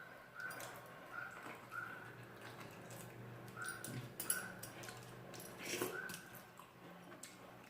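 Close-up chewing and wet mouth sounds of someone eating rice with curry, with soft smacks and clicks and a sharper click about four seconds in.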